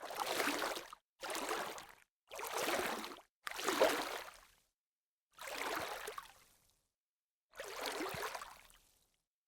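Water splashing: six separate splashes, each about a second long, starting suddenly and fading out, with dead silence between them.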